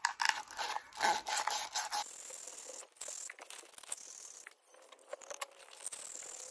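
Sandpaper rubbed by hand on the end of a PVC pipe, in quick scratchy strokes for about two seconds, then fainter, sparse scraping. The pipe end is being sanded down so it turns easily inside a tight 90-degree PVC elbow.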